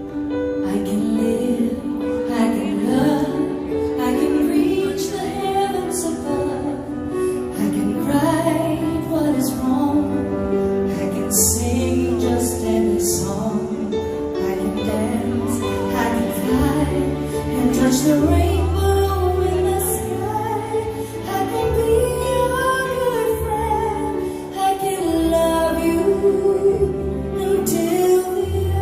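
A woman singing a song over instrumental accompaniment with steady bass notes.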